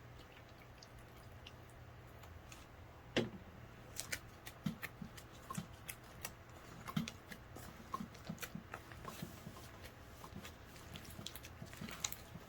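Hands kneading and stretching sticky, freshly activated clear slime: a run of small sharp clicks and wet pops, starting about three seconds in, the first one the loudest.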